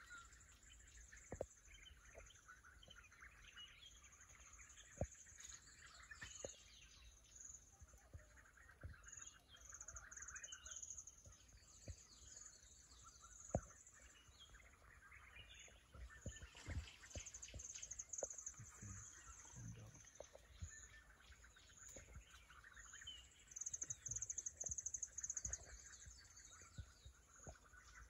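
Faint outdoor ambience with birds chirping on and off. A high, rapidly pulsing trill comes and goes and is loudest near the end, with a few soft knocks scattered through.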